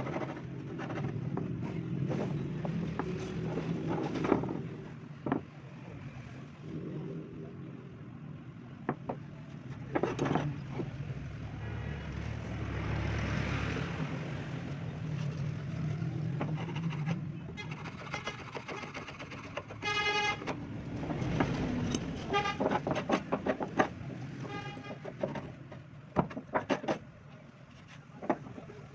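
Passing road traffic with a steady low hum, a vehicle horn sounding about twenty seconds in, and scattered knocks and clicks.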